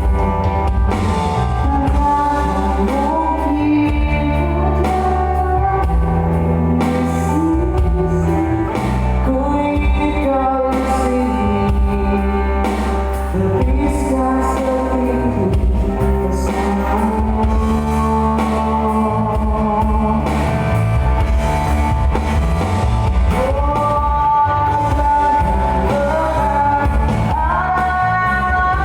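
Live band playing a song with a singer over a strong, steady bass line.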